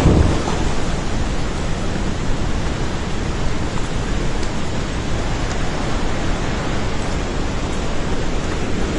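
Floodwater of a swollen river rushing past in a steady, loud wash of noise.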